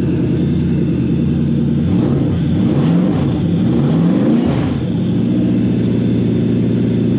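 Toyota 1UZ-FE V8 idling on its newly wired Link ECU, blipped twice in quick succession a couple of seconds in, the revs rising and falling each time before it settles back to a steady idle.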